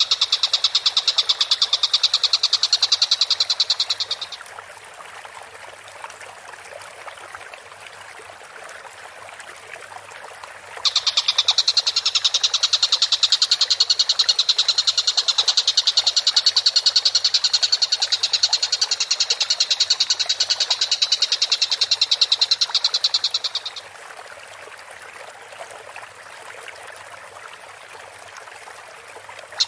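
Tengkek buto kingfisher's call on a masteran recording: a loud, very fast high-pitched rattling trill held for about four seconds, then again from about eleven seconds in for roughly thirteen seconds, and starting once more at the end. Softer, lower chattering fills the gaps.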